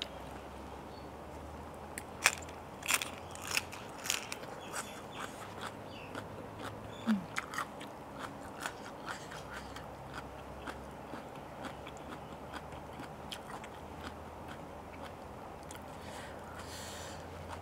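Close-miked chewing of a crunchy mouthful of raw cabbage leaf and spicy salad: a run of sharp crunches a couple of seconds in, thinning to fainter, sparser ones later.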